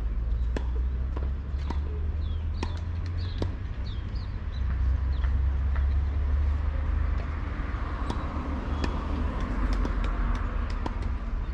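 Outdoor tennis-court ambience: a steady low rumble with scattered sharp knocks of tennis balls being struck and bouncing on nearby courts, and a few short bird chirps early on. A passing car swells and fades in the second half.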